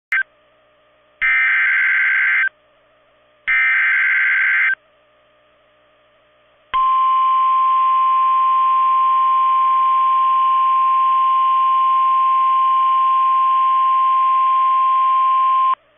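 Emergency Alert System SAME header on NOAA Weather Radio: the tail of one buzzy digital data burst, then two more bursts about a second apart over faint radio hiss. After a short pause comes the steady single-pitch 1050 Hz Weather Radio warning alarm tone, held for about nine seconds, which signals that a warning, here a severe thunderstorm warning, is about to be read.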